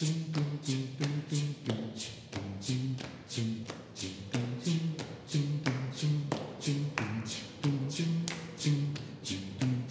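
A group of voices singing a cappella in a circlesong improvisation, short low notes repeated in a looping pattern, over steady hand clapping at about three to four claps a second.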